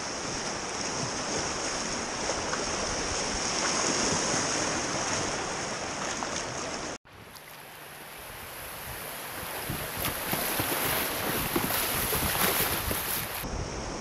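Rushing whitewater of river rapids around a kayak, a steady churning of water. About halfway through it cuts out abruptly for an instant, then comes back quieter and builds up again.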